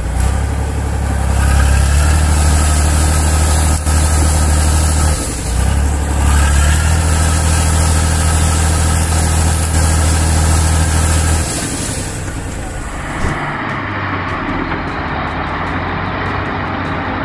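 Heavy six-wheel-drive logging truck's engine running hard under load as it tries to pull itself out of deep mud, easing off briefly about five seconds in. Near the end the sound changes to a noisier rumble with rapid clicking.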